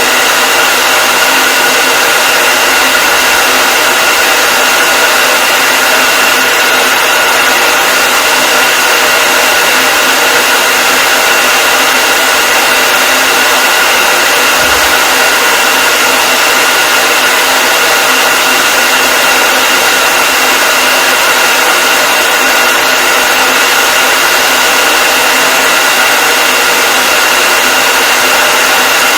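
Hair dryer running continuously: a steady rush of blown air with a constant motor whine.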